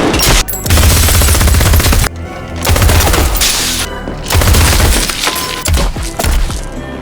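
Film soundtrack music, loud, with several long noisy bursts that cover the whole sound range, the longest about a second in and others near the middle.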